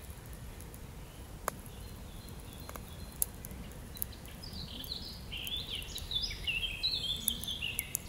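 Small stick campfire burning, with a few sharp crackles and pops. From about five seconds in, a bird sings a quick run of short, falling chirps.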